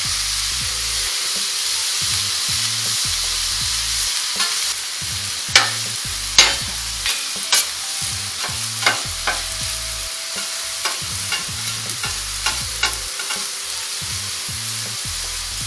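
Cubed beef and chicken sizzling on a steel flat-top griddle, a steady hiss, while a spatula scrapes and clacks against the griddle as the meat is turned. The clacks come in a quick run through the middle, sharpest a few seconds in.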